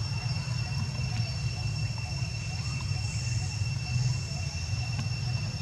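Outdoor ambience: a steady low rumble under a constant high-pitched drone, with a few faint, scattered chirps.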